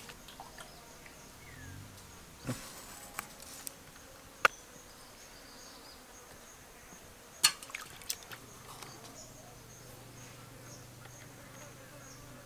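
A flying insect buzzing low from about eight seconds in, over a faint high chirping of insects. A few sharp knocks and clicks come through, the loudest about four and a half and seven and a half seconds in.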